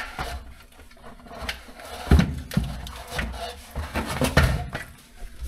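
Clinks and knocks of hand tools and engine parts being handled during engine assembly, with two heavier thumps, about two and four seconds in.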